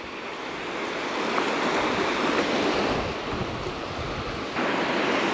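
Ocean surf breaking and washing up the beach, building through the first few seconds, with wind rumbling on the microphone.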